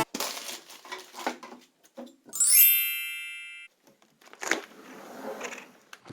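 A bright chime-like sound effect that sweeps upward, rings on for about a second and a half, then cuts off abruptly. Scattered quieter knocks and rustles come before and after it, with one sharper knock about four and a half seconds in.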